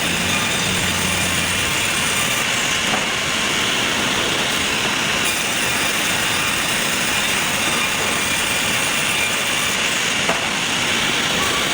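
Sawmill machinery running, a loud, steady mechanical din without pauses.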